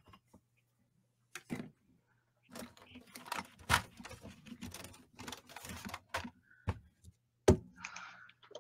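Art supplies handled and set down on a tabletop: a run of clicks, taps and rustling, with sharper knocks near the middle and near the end.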